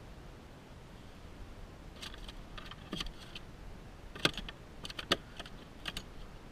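Scattered sharp clicks and knocks of handling on a plastic fishing kayak as a hand reaches down into the hull, with the two loudest knocks about four and five seconds in.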